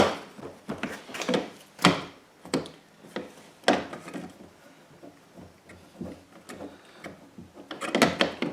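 Irregular clicks, knocks and rubbing as a replacement exterior door handle and its linkage rods are worked into place inside a truck door, twisted to seat. The knocks come in clusters near the start and again near the end.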